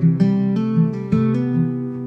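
Background music: an acoustic guitar playing plucked notes and chords at an easy pace.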